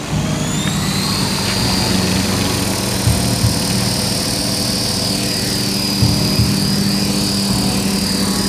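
Dragonfly 36 electric RC helicopter hovering low, its motor giving a steady high whine over the whir of the rotor. The whine rises in pitch during the first second as the motor speeds up, then holds steady.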